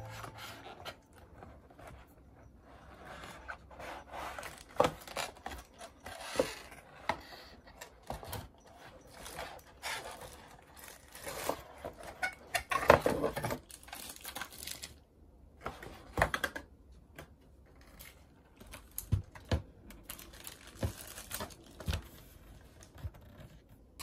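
Cardboard packaging being handled: the box and its insert rubbing and scraping, with irregular soft knocks and clicks as a keyboard is lifted out, the longest scrape about halfway through.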